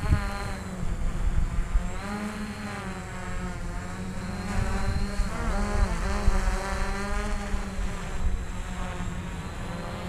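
Quadcopter's electric motors and propellers buzzing in flight, several pitches wavering up and down together as the motors speed up and slow down to hold the craft.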